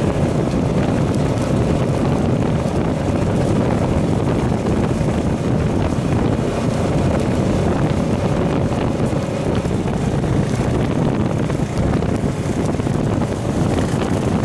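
Honda FourTrax Foreman Rubicon ATV's single-cylinder engine running steadily under way, mixed with heavy wind buffeting on the microphone.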